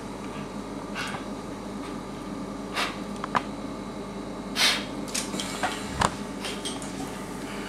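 Sedated French bulldog's short, noisy snoring breaths, about one every two seconds, from the obstructed airway typical of a brachycephalic dog before it is intubated. There are a couple of sharp clicks from the laryngoscope and tube, over a steady background hum.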